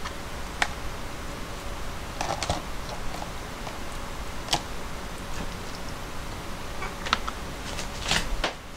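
Light, scattered clicks and taps of kitchenware as slices of boiled pork are laid by hand from a plastic colander onto noodles in bowls, with a small cluster of taps near the end, over a steady background hiss.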